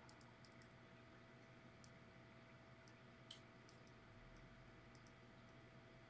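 Near silence: room tone with a faint steady hum and scattered faint, short ticks.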